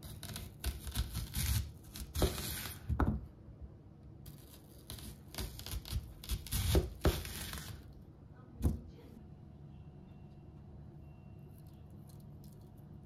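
Large kitchen knife slicing through a peeled raw onion on a cutting board: crisp crunching and tearing of the onion layers in two slow cuts of a few seconds each, then a single sharp click about nine seconds in. Faint small sounds of fingers handling the onion slices follow.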